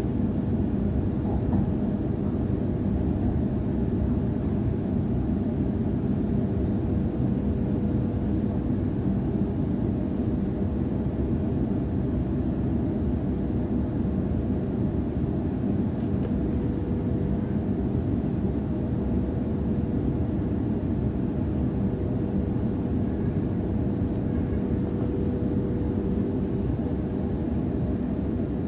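Cabin noise inside a Sydney Trains Waratah electric train on the move: a steady low rumble of wheels on track with a constant hum. A single faint click sounds about halfway through.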